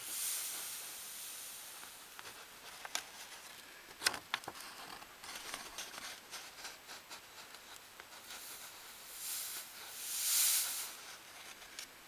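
Magnetite powder poured into a teacup around a graphite crucible, hissing as it slides off a sheet of paper. The hiss comes at the start and again, louder, near the end, with light clicks and paper handling between.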